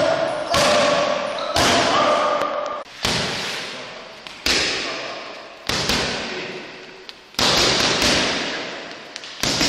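Boxing gloves smacking into focus mitts: seven sharp hits about one to two seconds apart, each ringing on in the echo of a large gym hall.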